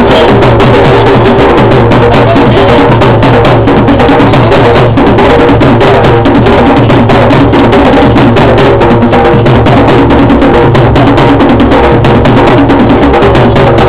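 Loud drum-led dance music with fast, dense percussion strokes running without a break.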